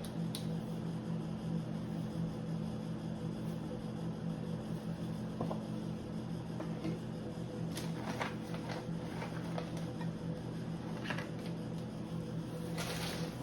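A steady low appliance hum, with a few light clicks and knocks of food storage containers being handled; the clearest comes near the end.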